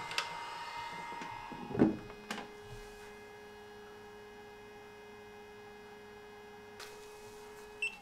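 Sovol filament dryer running with a steady electrical hum from its fan. Its clear plastic lid is shut with a knock about two seconds in, after which the dryer is quieter and one steady tone stands out.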